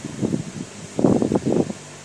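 Rustling and bumping noise from a dog's body and fur brushing against the microphone, in irregular clusters of short bursts.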